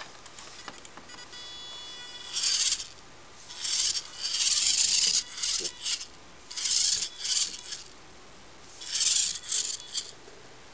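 Small DC drive motors and gearbox of an Arduino robot car whirring in short high-pitched spurts, starting and stopping every second or so. A faint steady electrical whine comes just before the first spurt. This is the car's follow mode driving it back and forth to hold a 20 cm distance from the object in front of its ultrasonic sensor.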